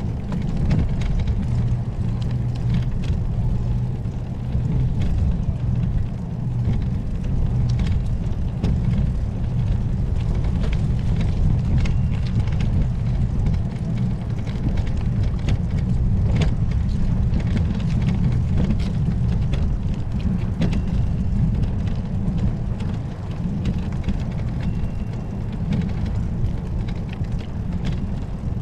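Wind buffeting the microphone of a camera on a moving bicycle: a steady low rumble with scattered clicks and knocks.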